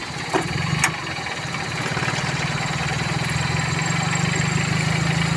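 Toyota 2E four-cylinder engine idling steadily, growing gradually louder, with two sharp clicks in the first second.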